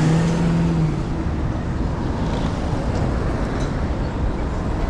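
Road traffic passing close by: a box truck's engine hum for about the first second, then a steady rush of passing cars.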